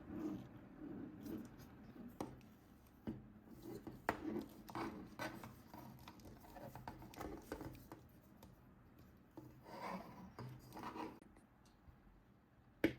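Hands handling toy packaging: irregular rubbing and scraping with light taps, and one sharp click near the end.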